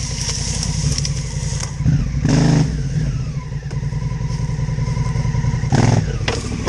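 Trail motorcycle engine running as it is ridden, with two short bursts of throttle, about two seconds in and again near the end.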